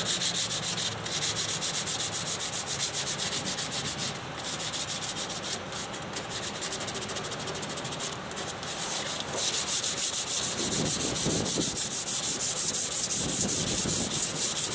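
Sandpaper being worked by hand over the painted metal of a boat's fuel tank, in rapid, even back-and-forth strokes with a couple of brief pauses. The paint edges are being feathered down toward bare metal.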